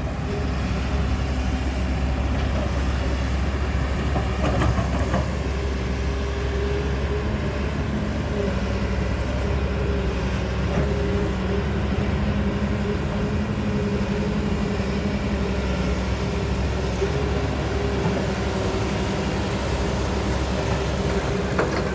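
Heavy vehicle's engine, a dump truck or excavator, running steadily with an even low drone.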